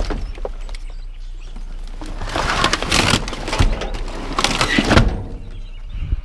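Plastic trash bags rustling and a plastic upright vacuum cleaner knocking against the inside of a metal dumpster as it is pulled about, in two noisy bursts about two and a half and four and a half seconds in, over a low steady rumble.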